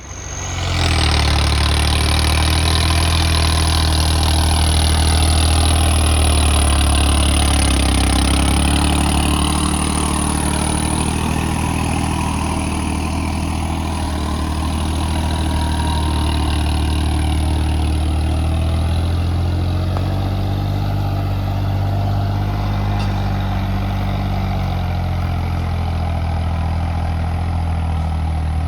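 Turbocharged, intercooled Swaraj 855 tractor's three-cylinder diesel engine running hard under load, coming in sharply in the first second and then holding a steady, deep note. A high, steady turbo whistle sounds over the engine.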